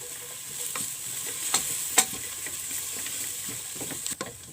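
Sliced onion frying in oil in a pressure-cooker pot, sizzling steadily as it sautés, with a few sharp clicks of a spoon stirring against the pot.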